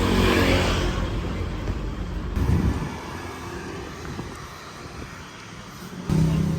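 Vehicle running: steady engine and road rumble, changing abruptly about two and a half and six seconds in.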